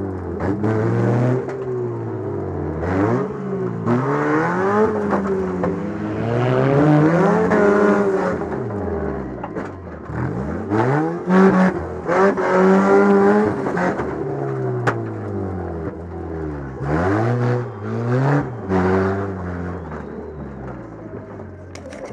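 Demolition derby car engine revving up and down over and over, with several sharp bangs along the way, most of them in the second half.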